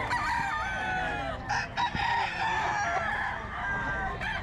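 Several gamefowl roosters crowing, their crows overlapping one another. A short burst of noise comes about a second and a half in.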